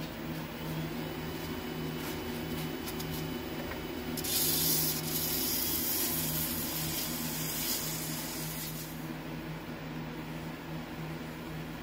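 Wood lathe running with a steady motor hum. From about four seconds in, sandpaper rubs against the spinning wooden bottle stopper for about five seconds, then stops.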